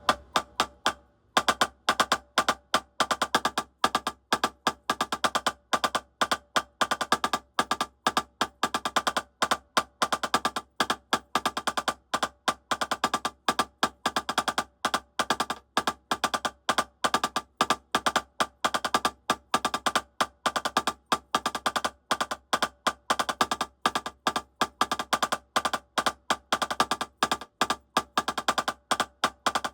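Drumsticks playing a fast, even three-stroke rudiment exercise. The strokes start about a second in.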